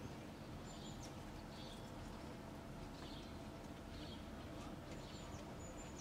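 Small birds chirping in short calls about once a second, with a couple of brief high whistles, over a faint low steady rumble of outdoor background noise.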